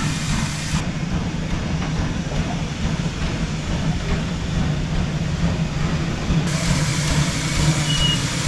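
Wood-fired steam locomotive running with a steady low rumble as it shunts.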